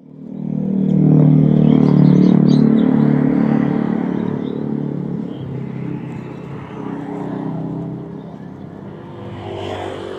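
Street traffic: a motor vehicle's engine running close by, loudest a second or two in and then slowly fading.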